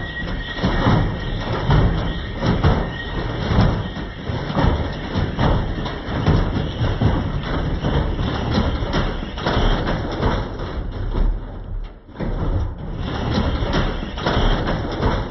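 Beko washing machine running with a concrete weight in its drum, banging and thumping hard and unevenly as the deliberately unbalanced load throws the machine about, with a short lull about twelve seconds in.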